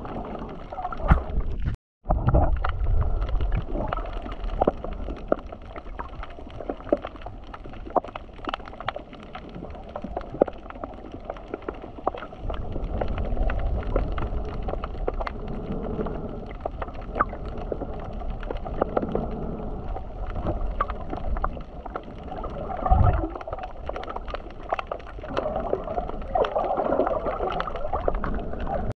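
Sea water sloshing and gurgling right at the microphone, muffled, with many small clicks and knocks and surges of low rumble. There is a brief break in the sound about two seconds in.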